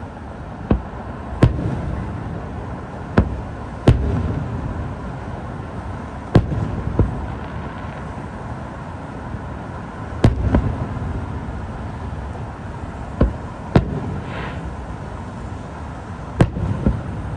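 Aerial fireworks shells bursting: about a dozen sharp bangs, often in close pairs a half-second apart, each trailing off in a low rumble, with a brief hiss about fourteen seconds in.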